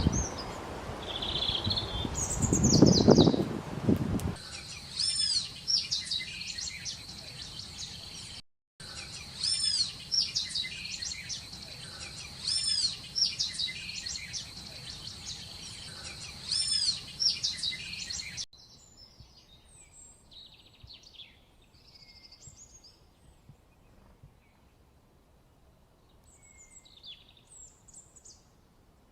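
Small birds chirping and singing, in several spliced stretches. First comes a noisy passage with a few chirps, then a run of repeated arching high notes over a steady high whine. About two-thirds of the way in it drops to faint, scattered chirps.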